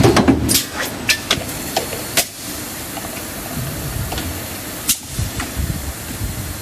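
Injection blow molding machine cycling: a steady hiss of air with a run of sharp clacks from the moving tooling in the first couple of seconds, and another clack about five seconds in, as the finished jars are stripped from the core rods.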